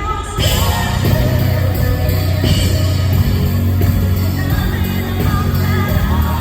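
Live country band playing loud and full in an arena, with a steady bass. After a brief drop in the sound at the very start, the full band comes straight back in.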